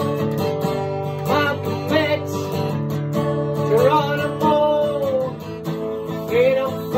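Acoustic guitar strummed in a steady chord pattern, with a man singing over it and holding some notes long.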